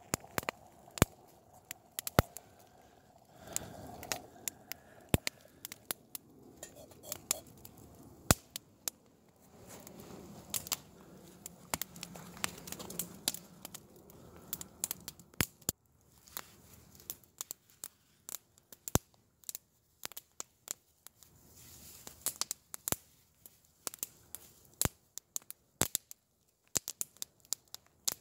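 Wood campfire crackling, with sharp irregular snaps and pops coming closer together near the end.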